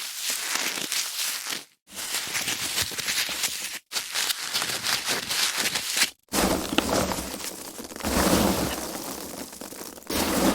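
Foam packaging being handled and rubbed, a dense crackling full of small clicks, in several short takes broken by abrupt cuts to silence about every two to four seconds.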